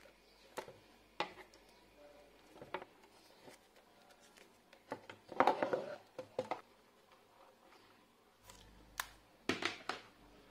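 Black electrical insulating tape being pulled off and wrapped around wire joints: scattered small clicks and crinkles, with a louder crackling tear a little past halfway and another pair of crackles near the end.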